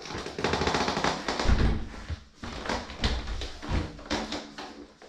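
A folded Brompton bicycle strapped onto a Burley Travoy trailer rattling and clanking as the loaded trailer is tipped back onto its wheels, with several dull thumps.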